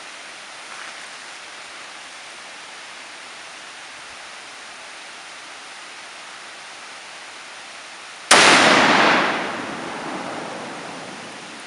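A single shot from a PTRD-41 anti-tank rifle firing a reloaded 14.5×114mm round, about eight seconds in: a sharp, very loud crack followed by a long echo that dies away over two to three seconds, over a steady background hiss.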